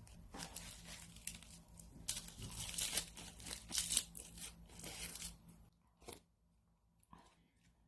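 Rough crinkling and tearing, like packaging being handled and torn open, for about five and a half seconds, then two faint clicks.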